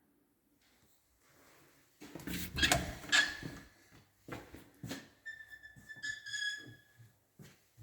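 A few knocks and clatters, then two single clicks, followed by a short high squeak or whistle lasting about a second and a half.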